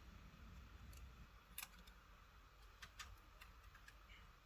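Near silence: faint room tone with a few soft, short clicks spread through it.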